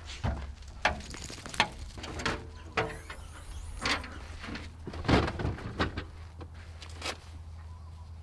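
Ute canopy door, latches and stowed gear being handled: a run of irregular metallic clicks and knocks as the canopy is opened and things inside are moved. The loudest knock comes about five seconds in.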